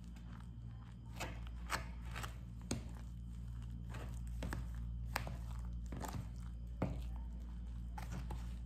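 A spoon stirring a thick banana cake mix of flour, sugar and egg in a plastic tub, with irregular scrapes and clicks against the container, over a steady low hum.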